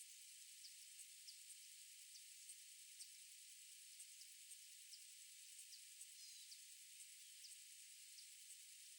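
Faint outdoor ambience: a steady high hiss, with short high-pitched chirps about once or twice a second and a quick run of three chirps about six seconds in.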